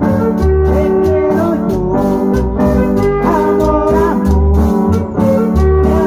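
Live band playing loudly through a PA: an electronic keyboard carries an organ-like melody over bass and a steady beat.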